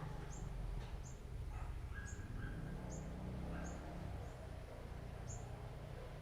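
Small bird chirping repeatedly: short, high chirps a little under once a second, over a low, steady hum.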